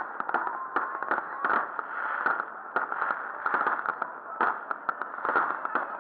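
Many fireworks going off together: a dense, irregular run of bangs and crackles that overlap with no pause.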